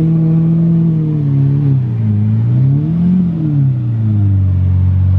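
Lamborghini Murciélago V12 being revved while stationary. The note climbs and holds, dips, then rises again to a peak about three seconds in before settling back.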